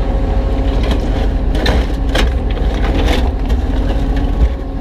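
Kubota U35-3 mini excavator running steadily under load, its bucket knocking and scraping against broken concrete several times while prying up a concrete path.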